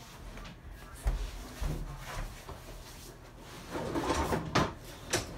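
Kitchen handling noises. There are two low thuds about a second in, then a rattling, scraping stretch and a few sharp knocks near the end, like drawers or cupboards being worked.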